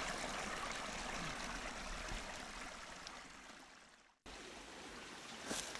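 Small stream running, a steady rush of water that fades down and breaks off about four seconds in, then comes back more faintly.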